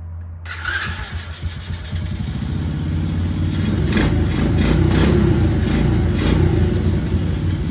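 Small Chinese ATV engine running, getting louder several times in the middle as it is revved.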